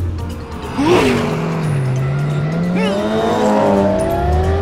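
Cartoon race car engine sound effect: a sharp rev about a second in, then the engine note drops low and climbs steadily in pitch as the car accelerates away. Background music returns near the end.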